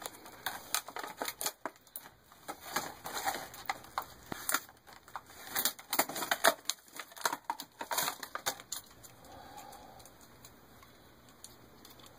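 Hands handling parts and packaging: irregular clicks and crinkling that die away about nine seconds in.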